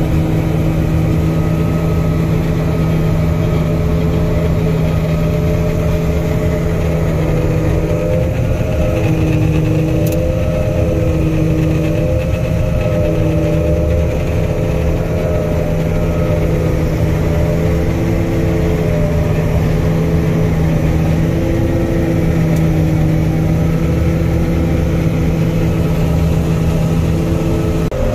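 Combine harvester running steadily under load while cutting soybeans: a constant engine hum with several higher machine tones that waver slowly in pitch.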